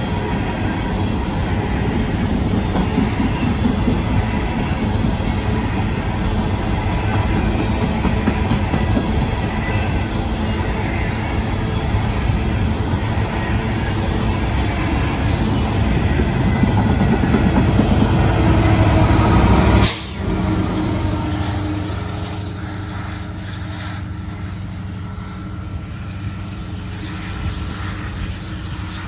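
A freight train of covered hopper cars rolls past close by, its wheels running loudly on the rails. About two-thirds through, this cuts off abruptly to a quieter, steady hum from a distant diesel locomotive approaching.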